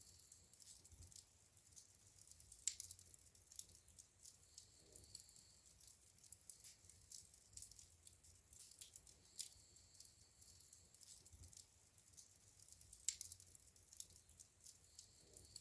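Wood fire burning in a fireplace, faint and crackling with irregular small snaps and pops; two sharper pops stand out, about three seconds in and near the end.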